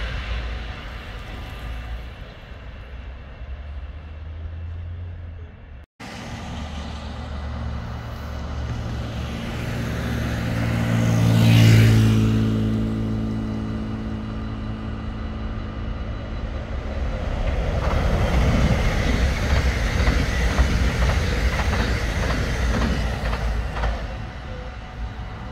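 Dutch electric passenger trains passing on the line alongside. One pass-by swells to its loudest about halfway through with a hum that builds and fades. Near the end a train's wheels clatter over the rail joints in quick clicks.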